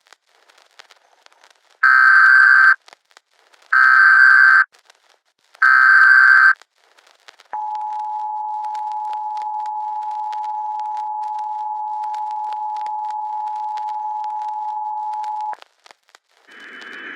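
Emergency Alert System signalling: three short bursts of SAME digital header tones, each about a second long and about two seconds apart, then the steady two-tone EAS attention signal held for about eight seconds before it cuts off. Faint crackling clicks run underneath, and a hiss begins just before the end.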